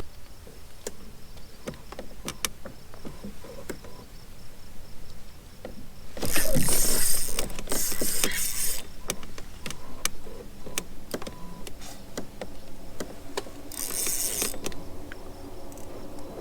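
Small clicks, taps and knocks of fishing gear being handled aboard a kayak, with two louder bursts of rushing, hiss-like noise, one from about six to nine seconds in and a shorter one near fourteen seconds.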